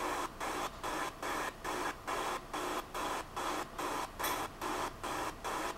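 Footsteps of someone walking down a hallway while filming on a phone: soft, even pulses of noise a little over two a second.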